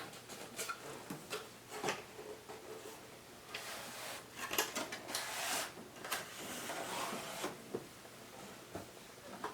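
Packaging of a mystery wand box being handled and opened: scattered light clicks and taps, then a few seconds of rustling and scraping in the middle.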